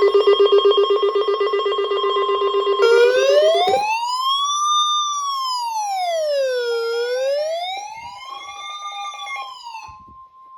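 Emergency alert alarm preceding a weather warning: a rapid, buzzing bell-like ring that stops about three seconds in, overlapped and followed by an electronic siren wailing slowly up and down, about one rise and fall every four seconds, with a steady high tone coming and going; the wail fades near the end.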